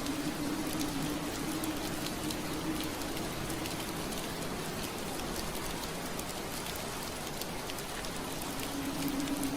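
Steady rain pattering on window glass, with many small drop ticks. A low steady hum under it fades out for the middle stretch and returns near the end.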